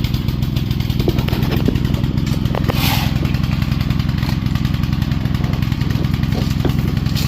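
Small gasoline engine of a jitterbug compactor running steadily with a fast, even beat.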